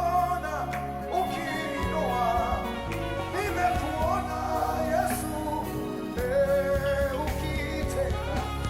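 Gospel worship song: a voice singing over instrumental accompaniment with a sustained bass.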